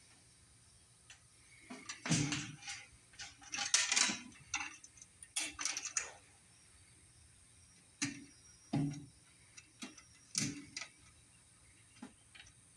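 Light metal chain clinking and rattling, with small sharp clicks, as the chain is fastened to a screw with an M3 nut. It comes in an irregular run of clinks about two seconds in, then a second run about eight seconds in.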